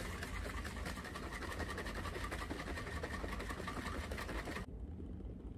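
Plastic protein shaker bottle shaken hard to mix a scoop of whey isolate powder, making a fast, continuous rattling churn that stops abruptly about four and a half seconds in.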